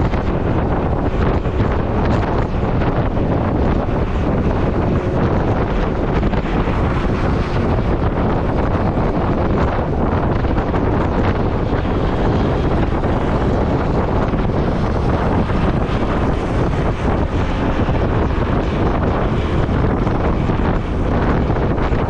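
Steady, loud wind rushing over the microphone of a riding motorcycle, with vehicle running noise beneath it.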